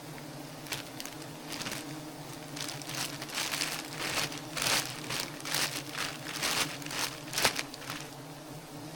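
Steady hum of a swarm of wild honey bees, with irregular crackling noises over it, loudest about four and a half and seven and a half seconds in.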